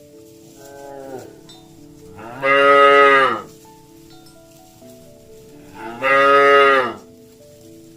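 Cow mooing: two loud, drawn-out moos, each about a second long and arching in pitch, with a fainter, shorter call near the start.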